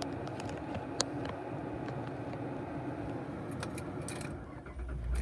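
Keys jingling and light clicks as the ignition is turned. Near the end the Holden VE Commodore's 3.0-litre V6 starts and settles into a low, steady idle.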